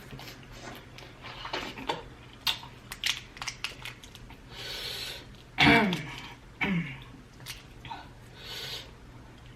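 Close-up eating sounds of prawns being chewed, with many small wet clicks and smacks. About five seconds in there is a sharp breath out, then two short vocal sounds that fall in pitch, a reaction to the heat of the spicy sauce.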